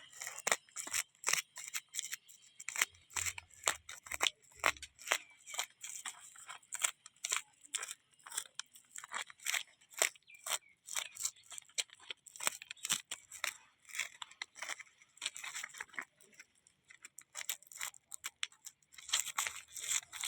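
Rapid, irregular crackling and tearing snaps, many a second, of dry material being torn or crushed by hand.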